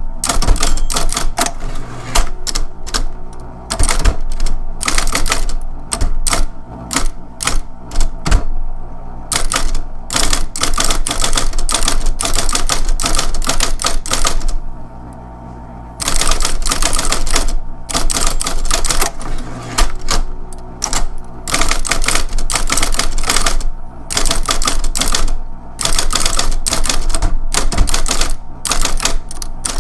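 Electric typewriter being typed on: rapid runs of key strikes over the steady hum of its running motor. Typing stops for about a second and a half near the middle, leaving only the motor hum, then resumes.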